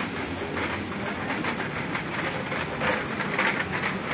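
A continuous rattling, rolling noise with many small irregular clicks and knocks.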